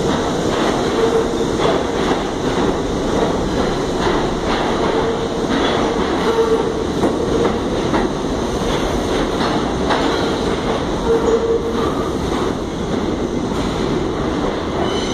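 New York City Subway train of R68 cars departing an underground station, running past and off into the tunnel. Its wheels click over the rail joints under a steady, loud rumble, with a pitched whine that comes and goes.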